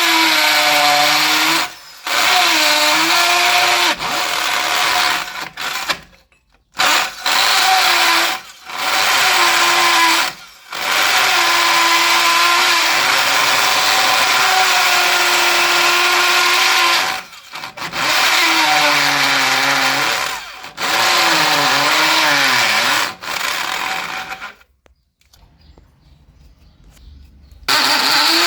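Electric drill drilling into concrete, run in bursts of a few seconds with brief stops; its whine sags in pitch and recovers as the bit bites and frees. It pauses for about three seconds near the end, then starts again briefly.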